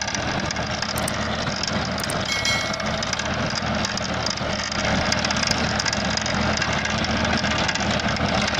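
Ford 3600 tractor's three-cylinder diesel engine running steadily under load while its 7 ft rotavator's spinning blades churn paddy stubble and dry soil. A brief high squeal comes through about two and a half seconds in.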